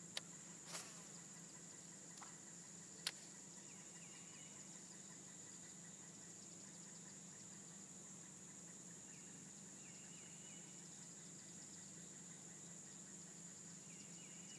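Faint, steady high-pitched insect drone. There are a few sharp clicks in the first three seconds and a few faint chirps later.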